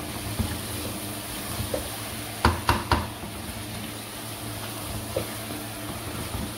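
Spatula stirring chicken koftas and potato chunks frying in a wok, over a steady low sizzle. Three quick sharp knocks of the spatula against the pan a little over two seconds in, with a few lighter scrapes and taps elsewhere.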